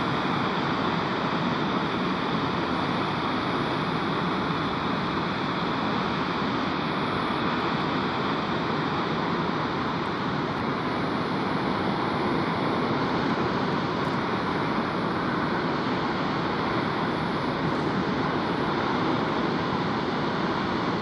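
Steady roar of rushing water, even and unbroken.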